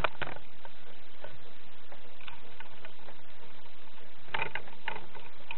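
Lego plastic pieces being handled, giving a few scattered light clicks and clacks, with a quick cluster of them about four and a half seconds in.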